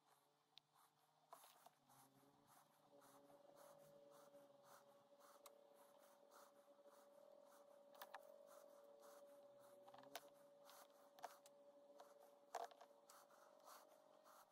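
Near silence with faint handling noise: mesh and a wooden lure rubbing in the hands, and a few light clicks as small plastic spring clamps are set on the lure, most of them in the second half.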